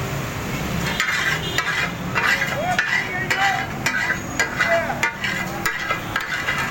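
Two steel spatulas chopping and scraping offal on a hot flat iron griddle (tawa) in taka tak cooking. A rapid, irregular clatter of metal on metal with short ringing tones starts about a second in, over frying sizzle.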